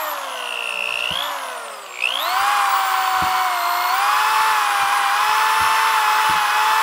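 Electric drill running with its bit boring into a snack cake frozen hard in liquid nitrogen. The motor's whine sinks in pitch as it slows under load over the first two seconds, picks back up about two seconds in, and then runs steady.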